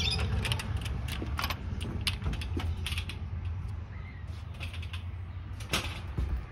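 A fly-screen door being unlatched and opened, with a series of sharp clicks and light knocks, then one louder click near the end, over a steady low rumble.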